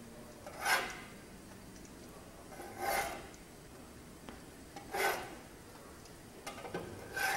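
Spatula scraping across a griddle plate as pancakes are turned: four short rasping strokes about two seconds apart.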